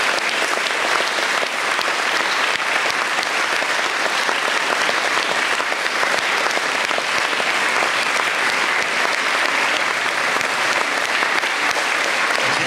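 Audience applauding steadily, with the choir on stage clapping along.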